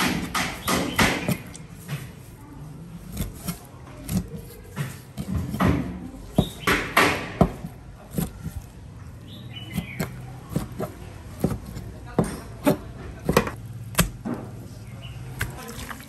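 Chef's knife cutting through raw fish fillet and striking a plastic cutting board: many sharp knocks at an uneven pace.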